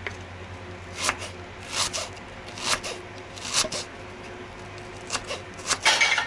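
Kitchen knife slicing a red onion on a wooden cutting board: six or seven short cutting strokes, about one a second from a second in, coming quicker near the end.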